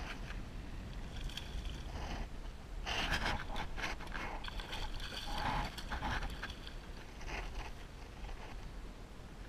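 Water splashing and sloshing in irregular bursts, loudest about three seconds in, as a hooked redfish thrashes at the surface close by. Under it runs a low, steady rumble of wind on the microphone.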